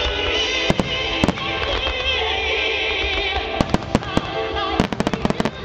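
Aerial fireworks bursting over music: a few separate sharp bangs, then a rapid run of about eight bangs near the end.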